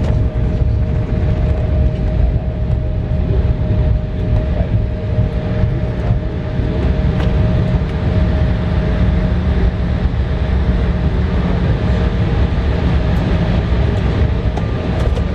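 Inside the cabin of an Embraer regional jet decelerating on the runway just after landing: a loud, steady low rumble from the wheels and engines, with a faint steady engine whine over it.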